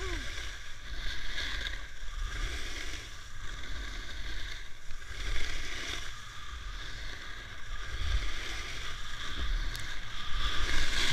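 Edges of skis or a board scraping and swishing through freshly groomed corduroy snow in linked turns, the hiss swelling and fading with each turn about every second or two, over a steady low rumble.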